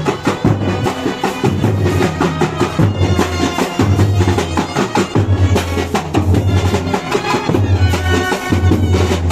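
Procession band music: a reedy wind-instrument melody over a steady, repeating drum beat.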